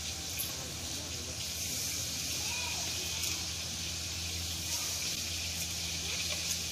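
A steady hiss with a low hum beneath it, and a few faint snicks as green chilies are sliced against a boti blade.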